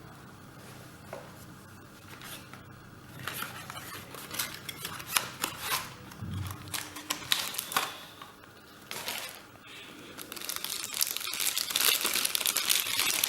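Packaging being handled and unwrapped: a plastic wrapper crinkling and rustling with small irregular clicks. It starts after a few quiet seconds and grows denser and louder near the end.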